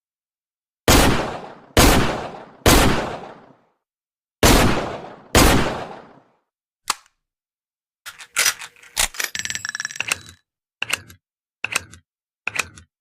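Taurus Model 605 .357 Magnum revolver fired five times, three quick shots then two more after a short pause, each with a long echoing tail. A single click follows, then a run of metallic clicks and clinking rattles and a few separate clicks.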